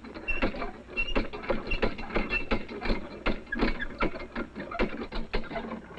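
Hand water pump being worked hard: the handle and rod clank several times a second, with short high squeaks in the first half, and no water comes. The pump has stood unused for four years, which the family gives as the reason it won't draw.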